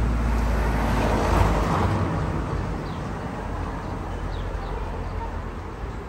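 Road traffic noise: a passing vehicle's steady rush swells over the first second or so and then fades away.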